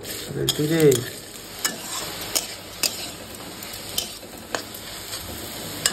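Kausala saag greens sizzling in a wok while a spatula stirs and scrapes them against the pan, with irregular sharp clicks of the spatula on the pan.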